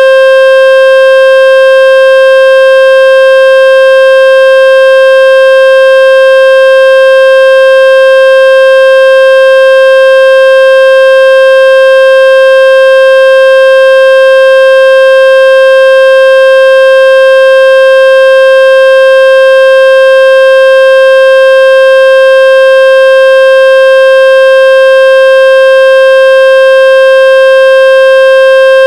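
A loud, steady, buzzy electronic tone with many overtones, played by a phone speaker-cleaning app to shake water out of the speaker.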